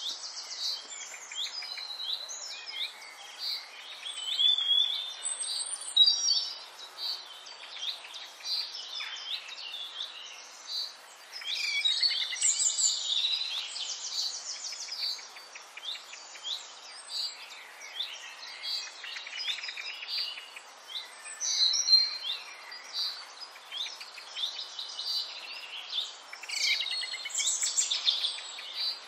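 Many small birds chirping and twittering together, a dense, continuous chorus of high-pitched chirps and quick trills over a faint steady hiss.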